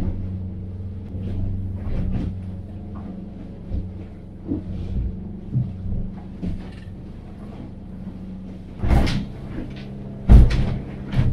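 Boat engine running steadily under way, with the hull and cabin knocking and banging as the small boat pounds through rough, choppy seas; several loud bangs come near the end.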